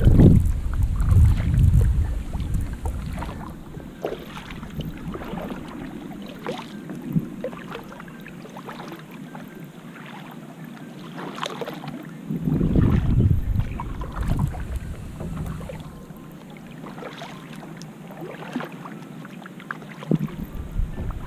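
Kayak paddle dipping into calm water, with light splashes and drips from the blades at each stroke. Low rumbling gusts of wind hit the microphone at the start and again about halfway through.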